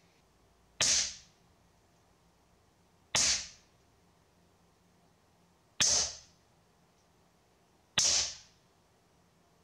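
Four shots from an Artemis PP700S-A .22 PCP air pistol, two to three seconds apart. Each is a sharp crack with a short hissing tail. The first is fired bare, the middle ones through a Walther moderator, and the last through a 3D-printed silencer.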